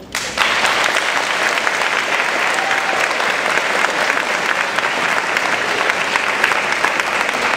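Audience applauding: many hands clapping in a dense, even patter that breaks out suddenly just after the start and holds steady throughout.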